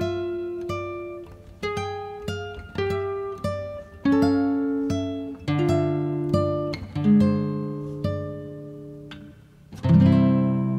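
Background music: an acoustic guitar picking single notes one after another, each fading, with a louder, fuller chord near the end.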